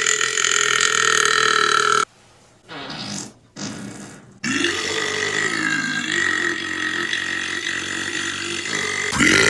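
A man belching deep, long belches. One belch runs on for about two seconds and breaks off. After a short quiet gap, another long belch starts about four and a half seconds in and carries on almost to the end. A third begins right at the end.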